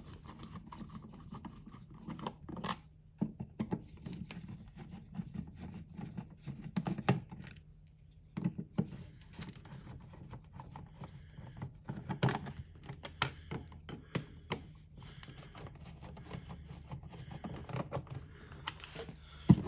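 Light switch cover plate being unscrewed and taken off the wall: scattered small clicks, scratches and scrapes of a screwdriver, screws and plastic plate being handled, over a faint steady low hum.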